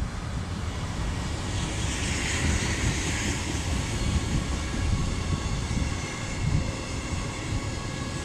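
A freight train of bogie tank wagons rolling past at speed behind an SNCF BB 27000-series electric locomotive (BB 27080): a steady rumble of steel wheels on rail, with a brighter hiss about two to three seconds in. Wind buffets the microphone throughout.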